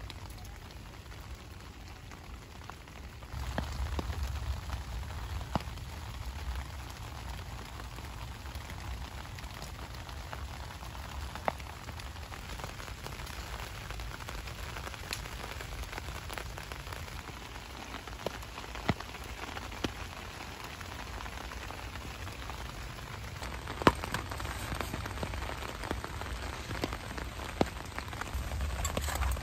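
Steady rain falling and pattering on surfaces, with single drops now and then ticking sharply above the wash. It gets louder a few seconds in.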